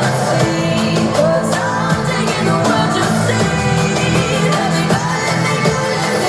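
Pop song with singing over a steady bass line, played back through a portable Bluetooth speaker.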